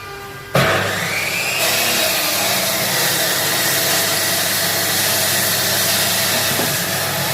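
A power tool's motor switched on about half a second in, spinning up with a rising whine and then running steadily at full speed.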